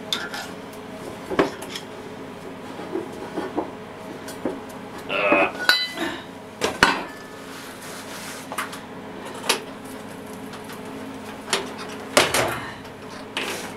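Steel parts and tools clanking and knocking on a steel workbench as they are picked up and set down: scattered irregular hits, with one clank that rings for a moment about five to six seconds in.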